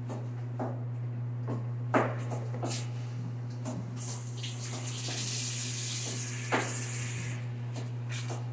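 Water running from a kitchen tap for about three seconds, starting about four seconds in, over a steady low hum. A few light knocks come earlier, from fruit being handled on a cutting board.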